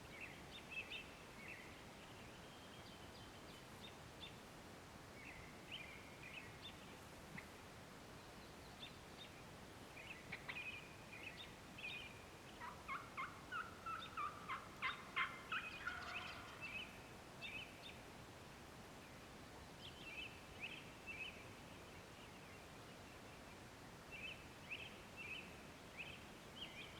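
Wild turkey gobbler gobbling faintly in several short bouts. The longest and loudest run of rapid notes comes about halfway through, with shorter bouts near the start and near the end.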